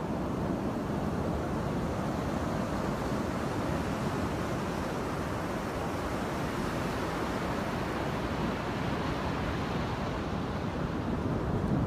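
Steady rush of breaking ocean surf with wind buffeting the microphone.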